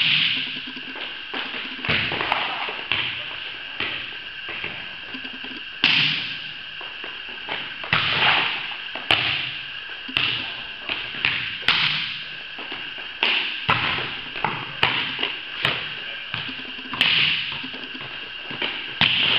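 Volleyballs being struck by hand and passed, about a dozen sharp smacks spread irregularly through the stretch, each ringing briefly in the large hall.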